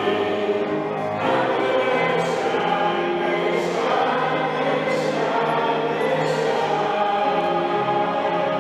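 Church choir and congregation singing a hymn, the recessional at the end of Mass, in long held notes.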